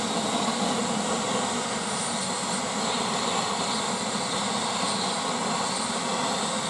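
Steady hissing roar of a lump of sodium burning in air on the surface of lake water.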